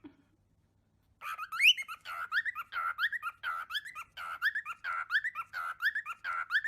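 Cockatiel chirping in a rapid series of short rising whistles, about two or three a second, starting about a second in.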